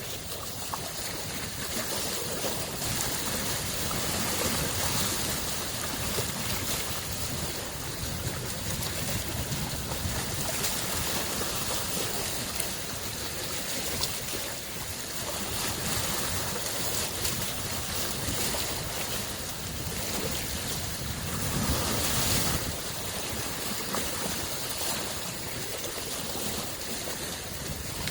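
Small lake waves lapping at the shore of Lake Biwa, a steady wash of water with gentle swells every few seconds, the largest about two-thirds of the way in.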